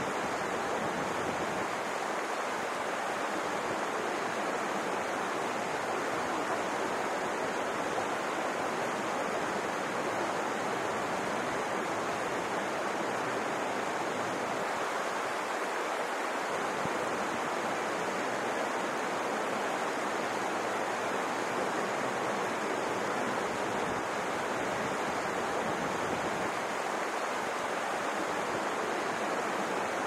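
Mountain stream rushing over rocks in small cascades: a steady, even rush of flowing water.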